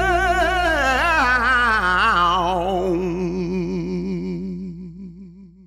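Closing bars of a song: a singer's voice with wide vibrato slides down and holds a long wavering note as the music fades out.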